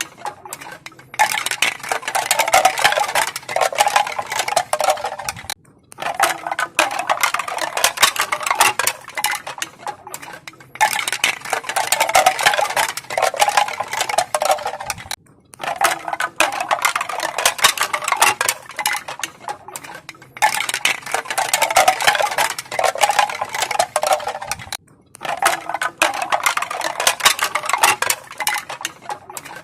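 Pieces of bamboo knocking together in a crisp, dense clatter of many small knocks. It comes in waves of a few seconds, with a brief pause about every five seconds.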